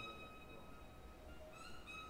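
Quiet improvised violin playing: one high, thin bowed note held steadily, with a sliding glide up into the same note near the end.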